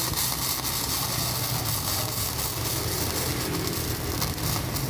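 Gasless flux-core MIG welding arc from a Protech 200 welder, crackling steadily as a bead is laid on steel, with a low hum underneath.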